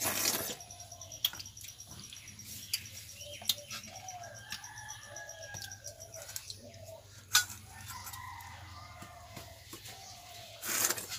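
Chickens clucking and calling in the background, several short wavering calls, with scattered light clicks. A short loud rush of noise at the very start and another near the end are the loudest sounds.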